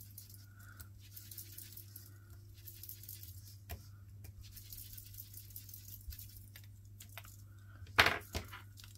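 Light rustling and small clicks from handling paper pieces at a craft table, with one sharp clatter about eight seconds in, over a steady low electrical hum.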